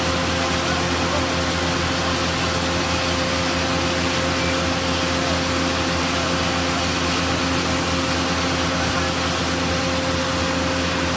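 A 1,000 gpm fire pumper's engine and pump running steadily while drafting water from a portable dump tank: an even mechanical drone with a constant hum.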